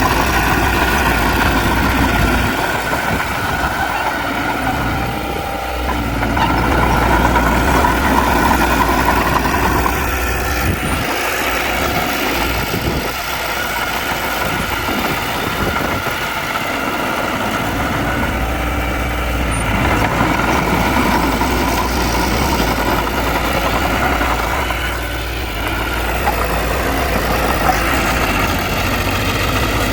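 Heavy diesel earthmoving machinery, dump trucks and a bulldozer, running and working. The engine noise is continuous, and its low hum drops away for a few seconds at a time before coming back.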